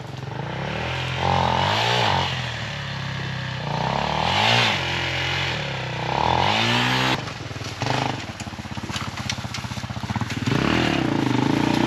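Dirt bike engines: one runs steadily close by while the revs rise and fall several times, as an enduro motorcycle is ridden through the forest toward the camera. The revs drop off suddenly about seven seconds in, the engine chugs slowly for a couple of seconds, then picks up again near the end.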